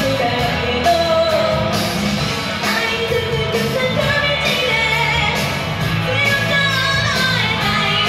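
A woman singing live into a handheld microphone, holding long, wavering notes over amplified instrumental backing music.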